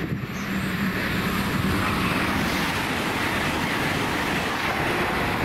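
A train passing along the line: a continuous rushing noise that builds about two seconds in, with a low steady hum that fades away.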